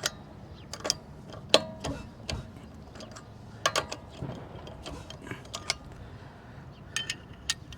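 Scattered metallic clicks and clinks of a hand socket ratchet and extension snugging a car wheel's lug nuts one after another.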